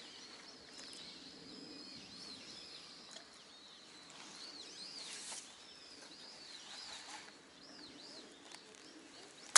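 Faint chirping of small birds: a string of short arching chirps, mostly through the middle, over a quiet outdoor background.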